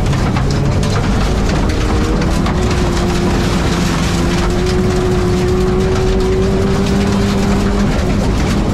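Race car engine under load heard from inside the stripped, caged cabin, with loud road and wind noise. The engine note climbs slowly and steadily in pitch, then drops away about a second before the end.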